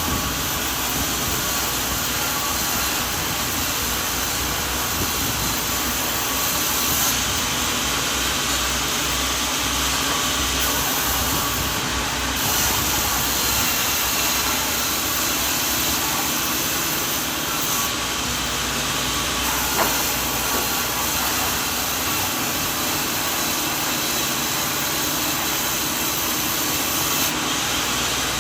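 Sawmill machinery running steadily, a loud, even, hissing machine noise with faint steady whines in it. A single brief knock about twenty seconds in.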